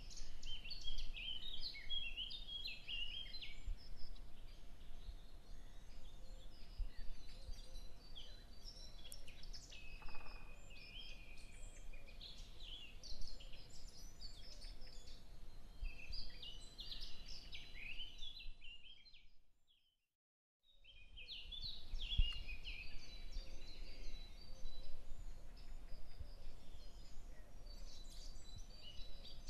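Many small birds chirping and chattering at once, a busy, overlapping chorus of short high calls. It drops out to silence for about a second partway through, then picks up again.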